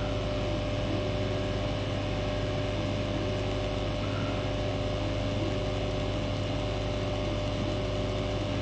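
Steady machine hum in a workshop: a constant low drone with a fixed mid-pitched tone on top, unchanging throughout.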